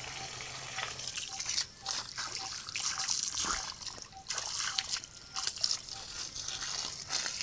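Water pouring and trickling from the open end of a plastic irrigation pipe and splashing onto grass and plants. Faint short peeps come about twice a second in the background.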